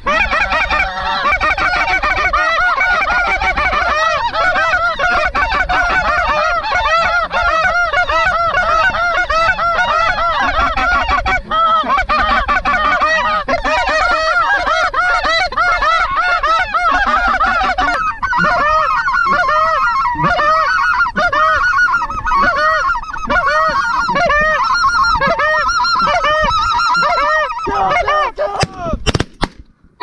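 A dense chorus of snow geese calling, many high yelping honks overlapping without a break; the lower calls thin out a little past the middle.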